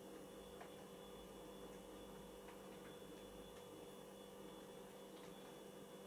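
Near silence from a Beko front-loading washing machine resting between drum turns in the cool-down stage of its wash: a faint steady hum and a few soft, widely spaced ticks.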